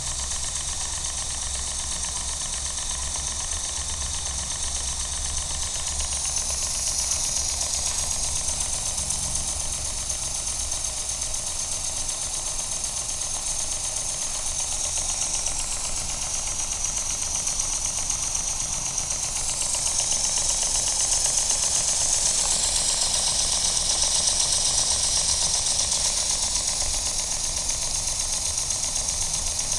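Bengs Danni #1 model steam engine running steadily on steam: a fast, even clatter and chuffing, with a steady hiss over it that grows a little louder twice.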